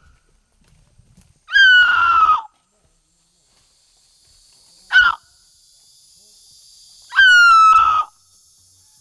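A Waorani hunter imitating a monkey's call with his voice to lure monkeys: three loud, high calls that each slide slightly down in pitch. The first and last last about a second each, and a short one comes between them.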